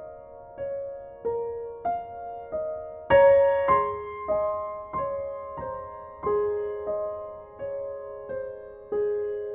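Background music: a slow, gentle piano melody of single struck notes at an even pace, with a louder chord about three seconds in.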